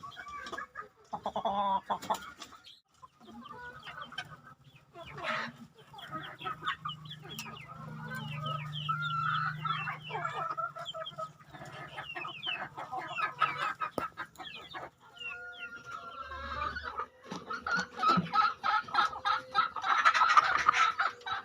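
A flock of Ayam Kampung Yudistira chickens, an Indonesian village-chicken breed, clucking and calling together, many short calls overlapping, growing busier near the end.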